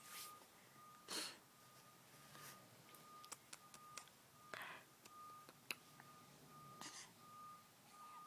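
Near silence with a few short, soft breathy snuffles from a newborn baby, the loudest about a second in, and a few faint clicks. A faint high electronic tone keeps cutting in and out.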